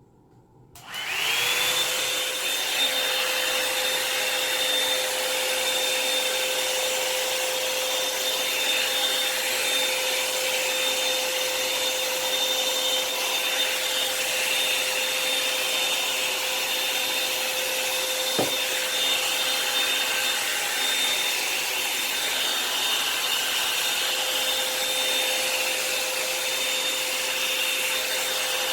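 Revlon hot-air dryer brush switching on about a second in, its motor spinning up to a steady high whine with rushing air.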